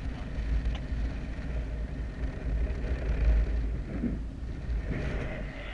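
Wind noise from the airflow of a paraglider in flight buffeting the microphone: a steady low rumble with a hiss above it.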